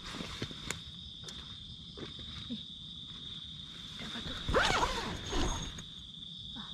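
Steady high chirring of night insects, with small rustles and clicks, and a louder brief scraping rustle about four and a half seconds in, like a tent zipper or handling of the tent.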